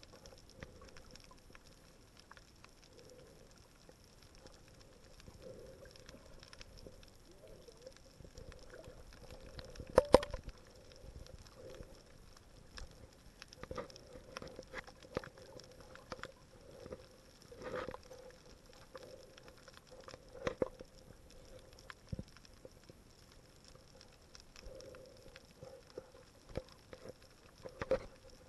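Faint, muffled underwater sound picked up by a submerged camera: a low hiss and soft swells of water noise, with scattered small clicks and knocks, one sharp click about ten seconds in.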